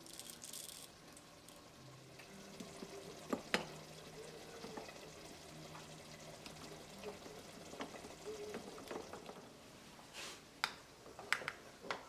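Black peppercorns rattle briefly into a glass pepper mill, then the mill's metal and glass parts are handled with light clicks. A sharp click comes about three and a half seconds in, and a cluster of clicks and clinks comes near the end.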